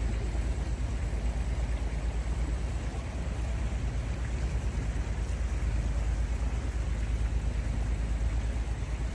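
Houseboat engine running steadily underway: a low, rapid throb with a constant hiss above it.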